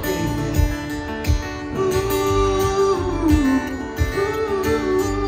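Solo acoustic guitar heard through an arena sound system, playing the instrumental close of a song: held melody notes that slide from one pitch to another over a steady strummed pulse.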